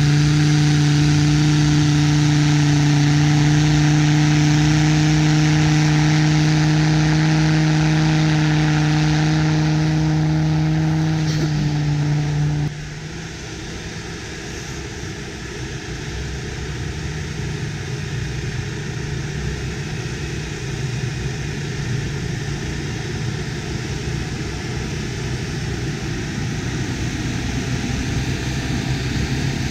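Land Rover Discovery TD5's five-cylinder turbodiesel held at high revs with its 37-inch tyres spinning in deep snow, a loud, steady note. About thirteen seconds in it cuts off suddenly to the same engine heard farther away and quieter, with a steady rushing noise.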